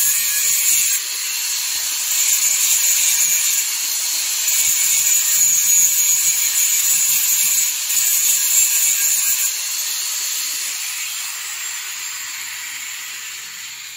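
A power tool running with a steady high whine and hiss, loud for about ten seconds and then fading away.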